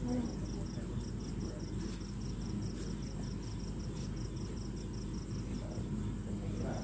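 A cricket chirping in rapid, evenly spaced pulses, over a steady low rumble.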